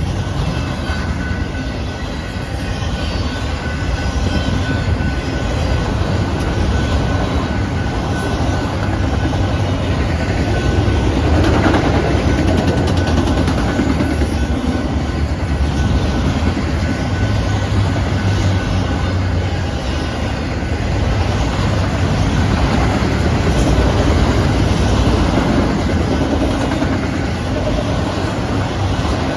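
Freight cars of a Canadian Pacific manifest train rolling past, a steady loud rumble and clatter of wheels on the rails, with a faint thin squeal in the first several seconds.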